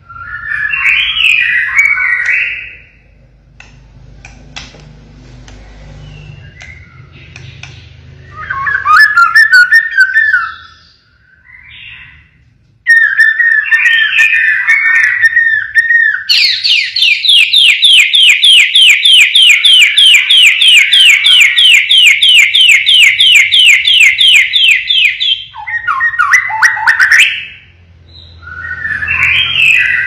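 White-rumped shama (murai batu), a white-spotted 'blorok' bird, singing loud whistled phrases. About halfway through it breaks into a long run of rapid, evenly repeated notes lasting some nine seconds: the 'siren shots' (tembakan) that shama keepers prize. After that come two more short whistled phrases.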